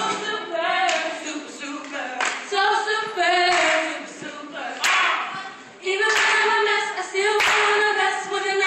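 A group of young women's voices singing a cappella into microphones, several voices together, with a few sharp claps.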